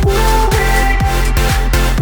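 Electronic dance music with a heavy bass, a steady kick drum and held synth tones.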